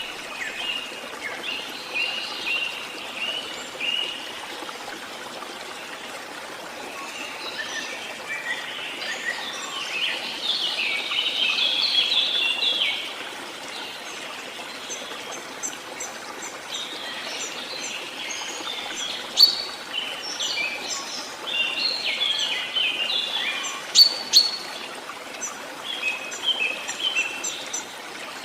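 Songbirds singing in repeated bursts of quick high chirps and trills, over a steady hiss like running water.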